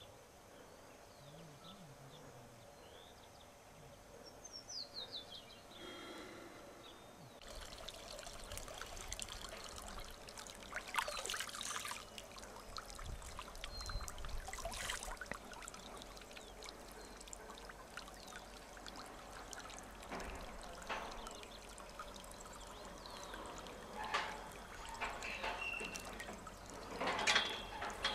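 Water lapping and sloshing in a concrete stock-water tank as a person moves in it, starting suddenly about seven seconds in, with a few louder splashy swells. Before that, faint outdoor quiet with a few short bird chirps.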